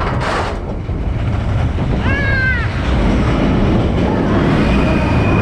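Expedition Everest roller coaster train rumbling along its track, with wind on the microphone. About two seconds in there is a short high-pitched squeal that rises and falls.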